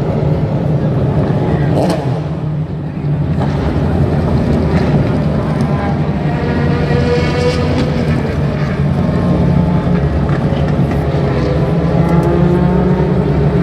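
DTM race cars' V8 engines running with a deep rumble, one revving up about six to eight seconds in. A few sharp exhaust pops, the strongest about two seconds in.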